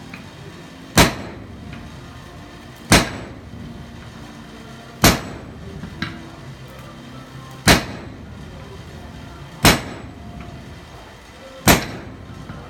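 Blacksmith's striker working a sledgehammer on hot steel at the anvil: six heavy metallic blows about two seconds apart, each with a brief ring. A lighter single tap falls about six seconds in.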